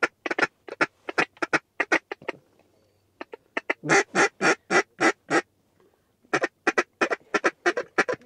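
Two hand-blown duck calls giving runs of quick, loud quacks. There are three runs with short breaks about two and six seconds in, and the middle run of about seven longer quacks is the loudest.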